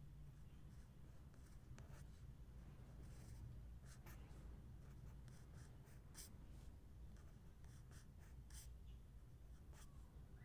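Fine-tip marker pen scratching on lined notebook paper while writing letters: faint, short, irregular strokes.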